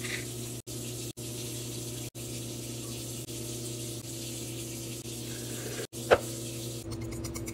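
A steady rushing noise with a low hum, cut by a few brief gaps, and one sharp click about six seconds in.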